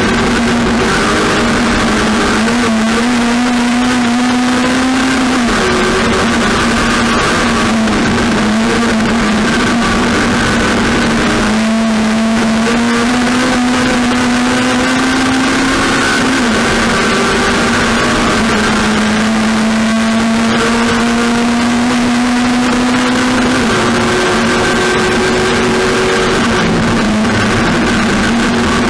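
Racing engine running hard at high revs. Its pitch climbs slowly over several seconds, then drops back, four times, as the driver shifts or lifts off and accelerates again.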